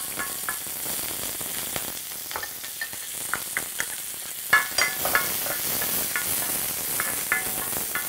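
Sliced green onions sizzling in hot grapeseed oil in a wide pan, stirred with a wooden spoon: scallion oil being made, the first stage of a stir-fry. A steady hiss with sharp clicks and knocks of utensils against the pan, loudest about halfway through.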